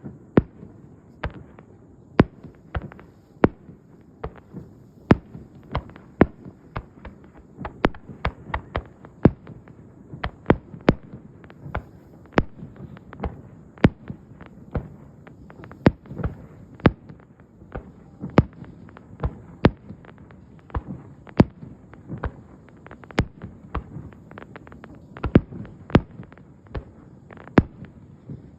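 Aerial fireworks bursting in a continuous barrage: sharp bangs about two a second at uneven spacing, over a steady low rumble.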